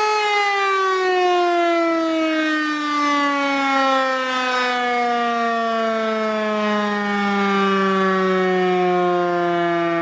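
Warning siren winding down, its single tone falling slowly and steadily in pitch throughout.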